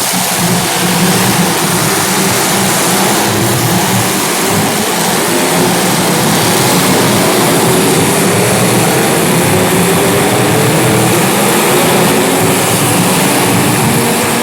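Several small racing engines running together and revving as the cars lap the track, their overlapping notes rising and falling.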